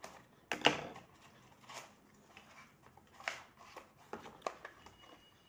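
Cardboard packaging being handled and opened: a run of short scrapes, rustles and sharp clicks as a parcel is cut open and the product box is slid out. The loudest stroke comes about half a second in.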